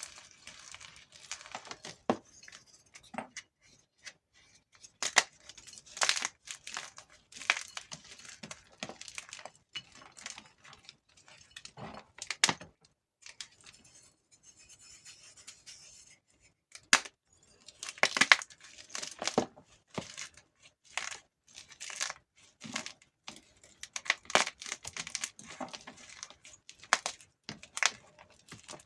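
Blocks of gym chalk crushed between the fingers: crisp, dry crunches and crackles in irregular clusters, with a quieter pause a little before halfway.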